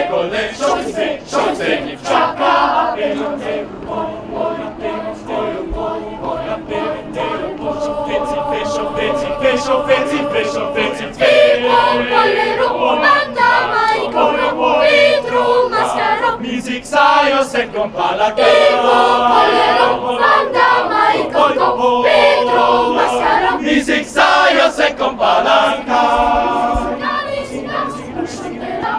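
Boys' choir singing a cappella in several parts, with hand claps from the singers among the voices.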